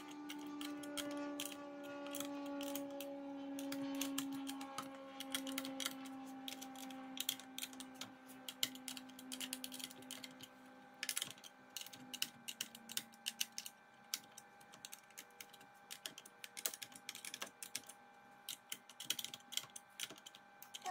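Half-inch ratcheting wrench clicking in quick runs with short pauses as the bolts holding the volute onto a pool booster pump are tightened one after another.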